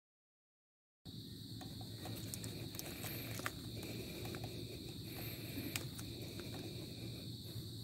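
Silence for about a second, then faint outdoor ambience: a steady high-pitched insect drone, with a few faint clicks.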